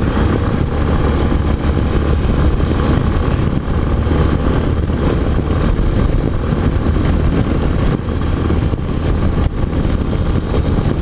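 Yamaha XTZ 250 Ténéré's single-cylinder engine running steadily at cruising speed, heard from the rider's position under a rush of wind and road noise.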